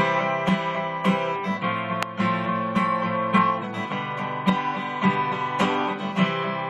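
Acoustic guitar strummed in a steady rhythm, about two strokes a second, the chords ringing on between strokes.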